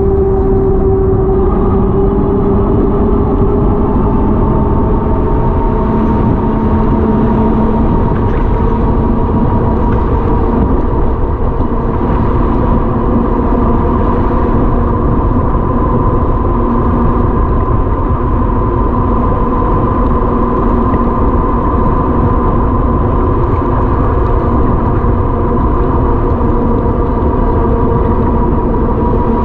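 A vehicle engine running steadily at cruising speed over a constant low rumble of wind and road noise, its pitch drifting only slowly.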